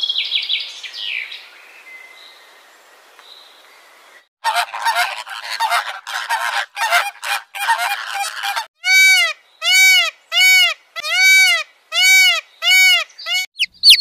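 A lilac-breasted roller's short harsh call, then a flock of flamingos calling in a dense chatter, then a steady run of about eight loud goose-like honks, nearly two a second. High cheeping of chicks starts just at the end.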